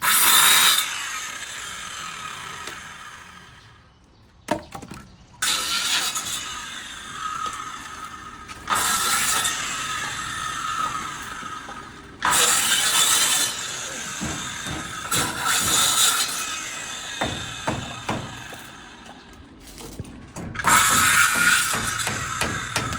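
A machine, most likely a power tool, running in several bursts. Each burst starts abruptly, holds a steady high whine, then fades away before the next one starts.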